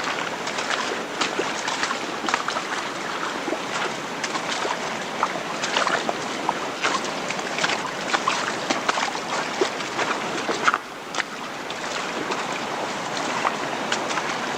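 Stream water rushing and splashing over rocks: a steady hiss dotted with many small crackling splashes, dipping briefly just before the end.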